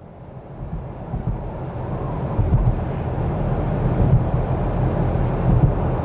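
A low, wind-like rumbling rush of noise that fades in from silence and keeps growing louder.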